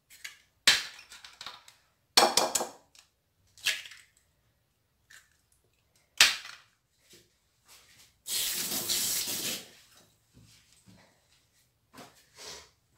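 An egg being cracked and its shell pulled apart over a glass bowl, giving several sharp cracks and clicks of shell spread over the first six seconds. About eight seconds in, a noisy hiss lasts just over a second.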